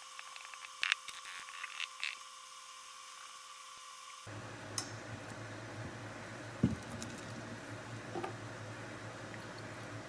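Small scratching and clicking sounds of hand tools working on the LCD panel's glass while the old rear polarizer film is scraped and peeled off: a cluster of clicks in the first two seconds, then scattered single ticks. A steady low hum comes in about four seconds in.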